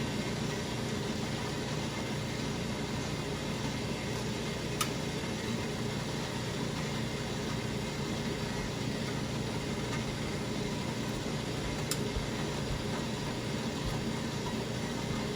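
Steady rushing kitchen noise with a low hum, unbroken throughout, with two light clicks, about five seconds in and about twelve seconds in.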